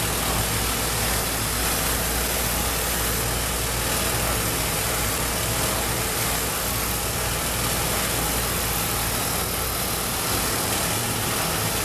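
Bench disc sander running steadily, its old sanding disc grinding the edge of a stack of laminated tempered-hardboard fan blade blanks; a steady motor hum under an even sanding hiss.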